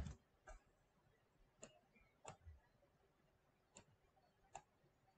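Near silence broken by about five faint, unevenly spaced computer mouse clicks.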